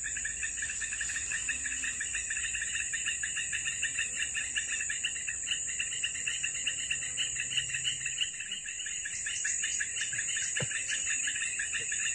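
Chorus of insects, crickets or cicadas: a steady high buzz over a rapid, even pulsing chirp of about five pulses a second.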